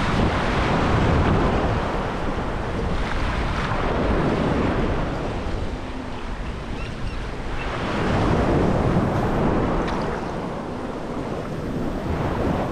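Ocean surf breaking and washing over the shallows at the water's edge, surging and easing in swells every few seconds.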